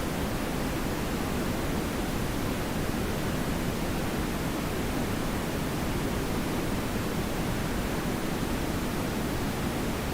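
Analog TV static: a steady, unchanging hiss with a fuller rush in the low range.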